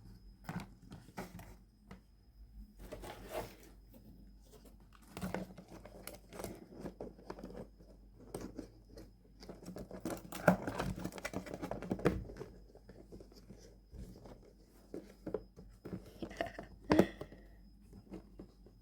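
Hands handling a plastic tub and small electronic parts: scattered clicks, knocks and plastic rustling, busiest a little past halfway, with a sharp click near the end.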